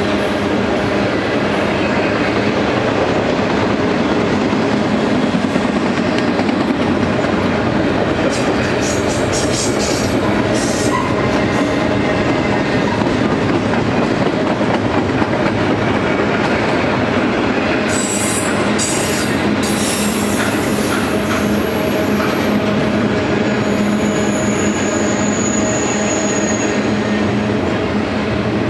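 Loaded double-stack intermodal well cars rolling past: a steady rumble of steel wheels on rail. Clusters of sharp clicks come about a third and two-thirds of the way through, followed by thin, high-pitched wheel squeal near the end.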